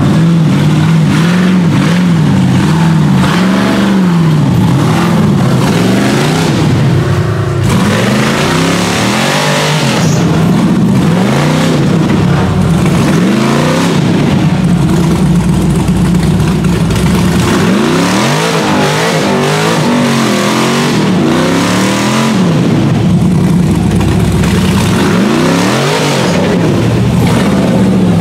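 Tube-chassis rock buggy's engine revving up and down over and over as it claws up a steep rock and dirt ledge under load.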